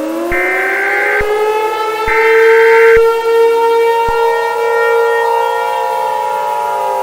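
Emergency Alert System header tones: two short bursts of harsh digital data tones about a second apart, over a siren tone that rises in pitch and then holds a steady wail.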